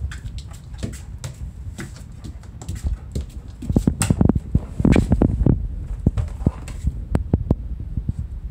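A large dog's footsteps on a wooden floor and a plastic pet toilet tray: scattered clicks and knocks of claws and paws, busiest and loudest around the middle.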